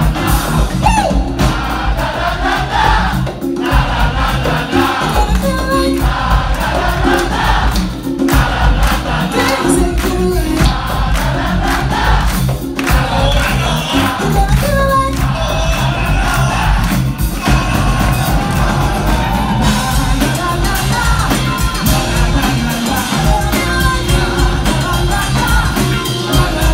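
Live acid-jazz band playing, with keyboards, drum kit and congas under two vocalists singing into microphones, and the crowd audible along with it. The low end is heavy and the sound has the roomy, distant quality of a small club recorded from the balcony.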